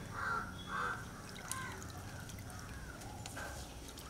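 Faint dripping and sloshing of indigo dye liquid as hands work yarn beneath the surface of the dye vat.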